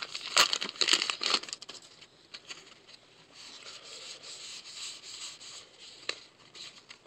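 Crinkling of a trading-card pack wrapper and cards being handled: a few sharp crinkles in the first second and a half, then softer rustling and light shuffling of cards.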